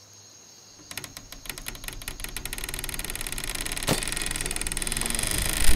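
A wooden chair rattling fast against floorboards, the rattle starting about a second in and building steadily louder, with a sharp knock about four seconds in and a deep rumble coming in near the end.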